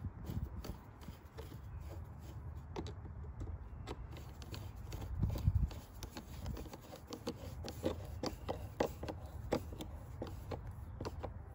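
Screwdriver turning the screw of a worm-drive hose clamp on a car's rubber air intake duct, tightening it to reseal the duct after an air filter change: a run of small, irregular clicks that gets busier in the second half. Under it is a low rumble, loudest about halfway through.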